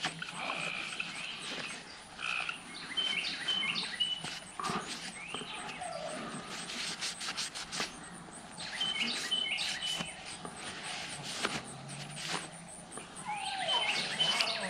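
Small birds chirping, a short call repeated every few seconds, over soft clicks and rubbing of small metal rifle parts being handled and wiped with a cloth.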